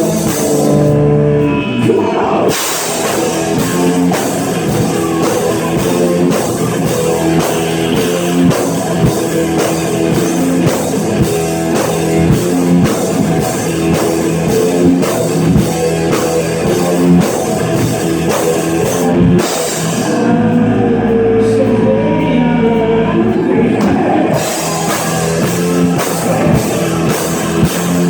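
Rock band playing live, an instrumental passage with drum kit and electric guitars. The drums drop out twice, briefly near the start and for about four seconds past the middle, leaving sustained held chords before the band comes back in.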